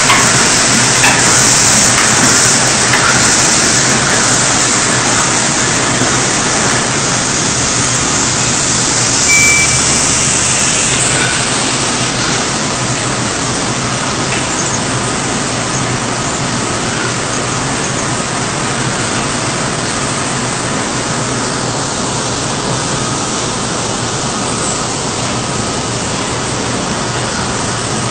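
Bottling-plant machinery running steadily: a loud, even hiss with a low hum underneath. The hiss turns a little less bright about eleven seconds in.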